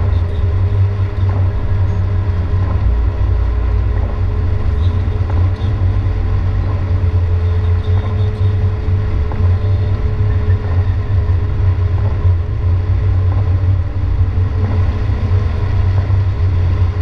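Car driving on a rain-soaked highway, heard from inside the cabin: a steady low rumble of engine and tyres on wet pavement, with a steady hum over it.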